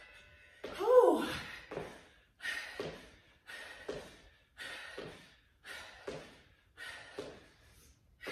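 A woman's hard, forceful breaths during squat jumps, one sharp exhale about once a second in time with each rep. About a second in, the loudest of them is a short voiced groan.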